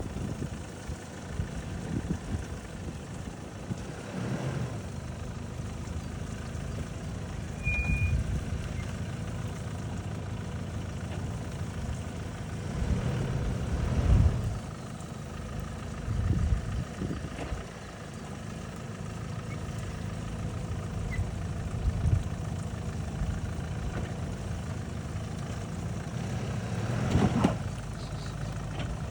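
Jeep Liberty KJ engine running low and steady as the SUV crawls over a rough off-road track, with several short louder surges or bumps along the way.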